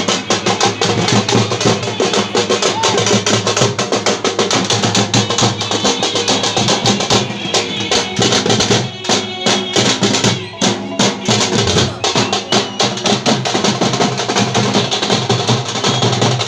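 Live street drums played by hand, beating a fast, steady rhythm, with brief breaks in the beat about two-thirds of the way through.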